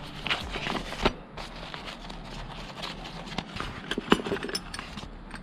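Rustling of a motorcycle's under-seat tool pouch being handled and pulled open, with scattered clicks and knocks of the tools inside.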